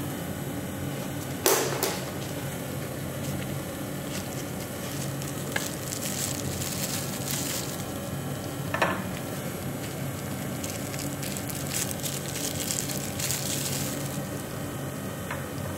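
Fiber laser marking a QR code into a steel knife blade: a crackling sizzle as the beam burns into the metal, over a steady machine hum. A few sharp clicks stand out, the loudest about a second and a half in.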